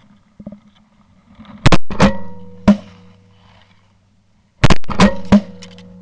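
Shotgun blasts in two quick strings of three shots, the first string about two seconds in and the second about three seconds later, each shot very loud and sharp with a short fading echo.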